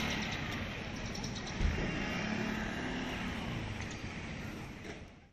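Street traffic noise, with a motor scooter riding past; it fades out near the end.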